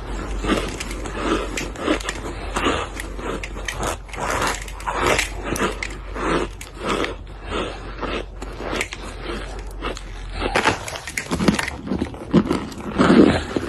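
Close-miked chewing of crunchy food, with repeated crunches about two a second.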